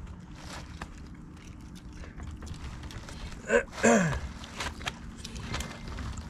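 Small clicks and rattles of fishing tackle being handled over a low rumble. About three and a half seconds in comes a short vocal exclamation from a man, two quick sounds, the second falling in pitch.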